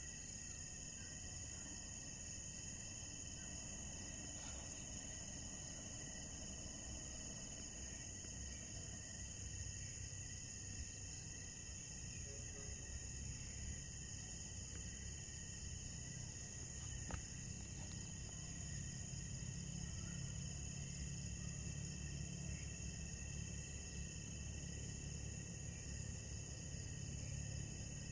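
Night chorus of insects trilling steadily at several pitches at once, over a low rumble of handling noise that grows in the second half; a single sharp click about two thirds through.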